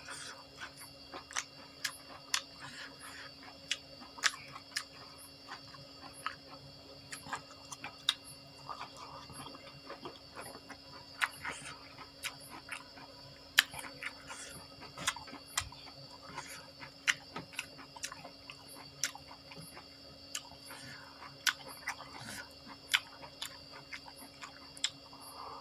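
Close-up chewing and biting of food, with irregular sharp crunchy clicks about one to two a second, over a faint steady hum.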